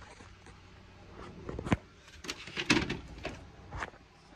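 Handling noise from a phone camera being grabbed: after a quiet second and a half, a string of knocks and rubs against the microphone, the loudest a little under three seconds in.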